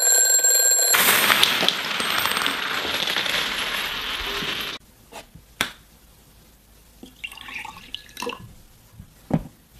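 Mechanical bell alarm clock ringing: a steady high ring that turns into a loud metallic clatter, cutting off suddenly about five seconds in. Afterwards only a few faint clicks and taps.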